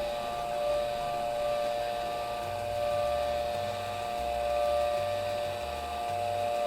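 Small DC motors running steadily off a step-down power module, giving a constant whine with an uneven low rumble underneath.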